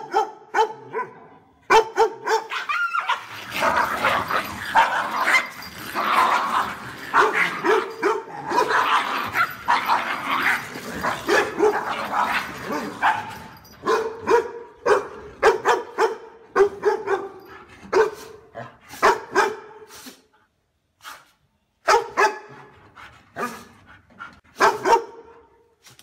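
Dogs barking repeatedly and loudly. The barks come thick and overlapping for about ten seconds after the opening, then in spaced runs with a short lull near the end before a final burst.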